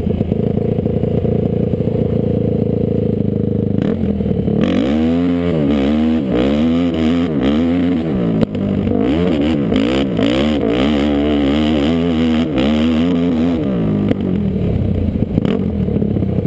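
Off-road vehicle engine heard close up from the machine it powers, running fairly steadily at first, then revved up and down over and over from about five seconds in, with a few sharp knocks along the way.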